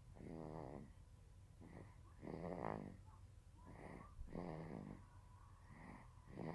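Snoring in a steady rhythm: a loud, rattling snore about every two seconds, four in all, each followed by a shorter, softer breath sound.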